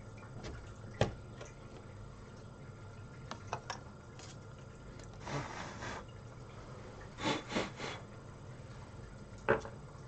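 Memory sticks being handled and fitted into a motherboard's DIMM slots, with plastic slot latches clicking: a sharp click about a second in, light ticks, a brief rub around halfway, a few quick scrapes, and another sharp click near the end.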